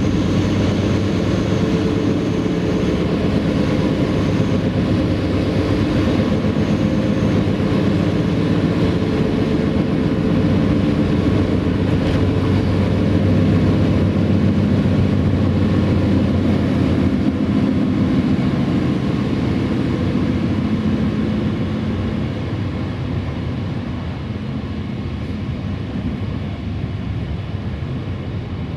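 Passenger train coach running at speed, heard from inside: a steady rolling rumble of wheels on rail with a low drone. It quietens a little in the last several seconds.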